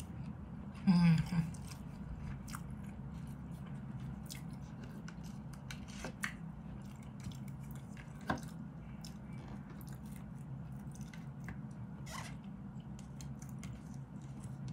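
A person eating with a plastic spoon and fork: chewing, with the utensils clicking and scraping now and then against a plastic food container. A short, loud vocal sound from the eater comes about a second in.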